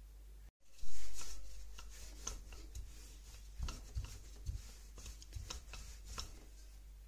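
Wooden rolling pin rolling out dough on a stone countertop: irregular soft knocks and rubbing as the pin is pushed back and forth. There is a louder thump just after a short gap about a second in.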